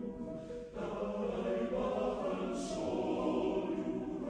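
Background music: a choir singing held chords in slow phrases.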